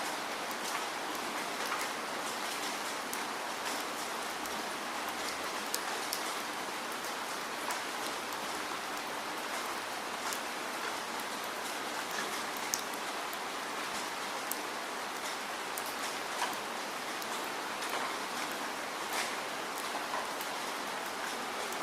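Steady falling rain: an even hiss with many individual drops pattering and ticking on a surface.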